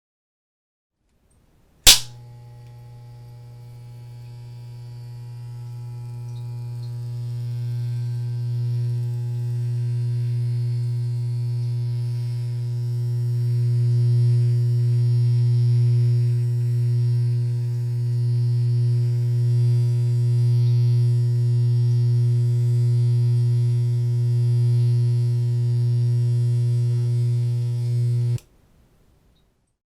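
Electric razor starting with a sharp click, then buzzing steadily in a low hum with many overtones. The buzz grows louder over the first several seconds, wavers slightly, and cuts off suddenly near the end.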